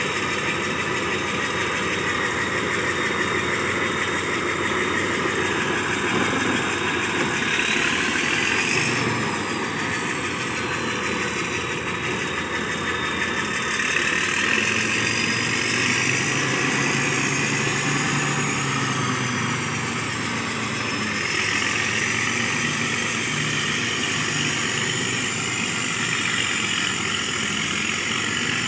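Diesel engine of an old motor grader running as the machine drives slowly, swelling in loudness a few times. A thin high whistle rises and falls with it, the turbocharger whistle.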